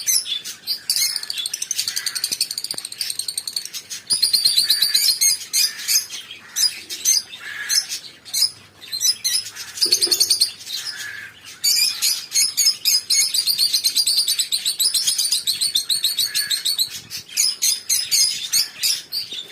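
A flock of lovebirds chirping and chattering: fast, high trills overlap continuously, with louder single calls breaking in every few seconds.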